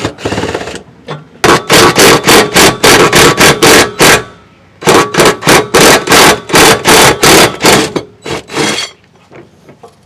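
Rapid, loud metallic knocking, about four to five strikes a second, in two runs of a few seconds each with a few single knocks around them, from tool work on the exhaust's last center hanger bracket.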